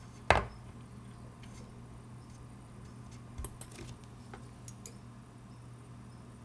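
Small steel staking punches clicking against each other and the wooden staking-set box as they are picked out: one sharp metallic click with a short ring just after the start, then a few light ticks about three to five seconds in.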